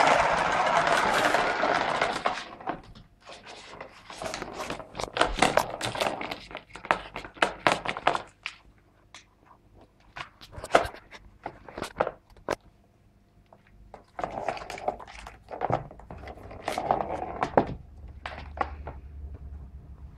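A ball rolling and rattling around the plastic track of a circular cat scratcher toy. There is a dense rush in the first two seconds, then scattered knocks and clacks as a Bengal cat bats at the ball, with short quiet gaps in between.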